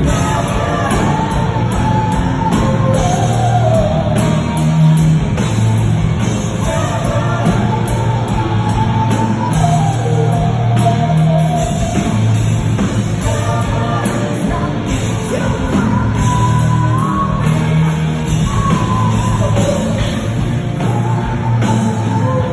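Rock band playing live: a sung lead vocal melody over electric guitar, bass and drums.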